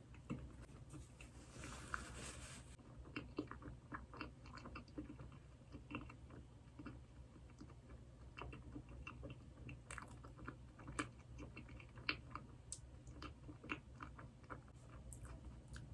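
A person chewing a doughnut close to the microphone: soft, irregular chewing with small wet mouth clicks all through, and a brief louder noisy patch a second or two in.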